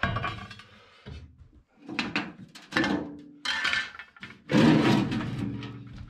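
Metal scraping and clanking as the old water tank is worked out of a cast-iron wood-burning cook stove: several knocks, then a long, loud scrape in the second half.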